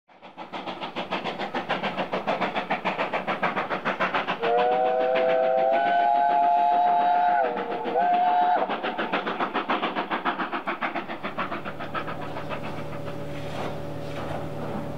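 Bulleid Pacific steam locomotive working hard, with rapid, even exhaust beats. About four seconds in it sounds its chime whistle for roughly four seconds, a three-note chord that briefly drops in pitch near the end. The exhaust then fades away, leaving a steady low hum.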